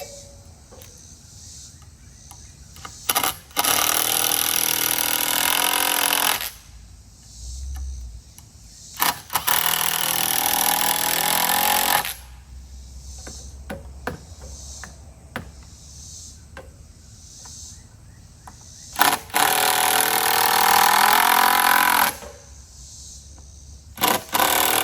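A power driver driving screws into wooden boards in three long runs of about three seconds each, each run preceded by a short trigger blip, its motor whine rising as it spins up.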